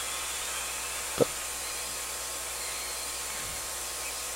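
Steady airy hiss of a hot air rework station blowing while a small surface-mount resistor is desoldered from a logic board, with one brief short sound about a second in.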